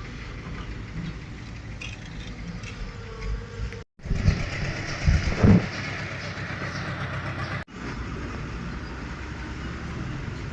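Engine of working heavy machinery running, cut off abruptly twice, about four and about seven and a half seconds in; the stretch between the cuts is louder.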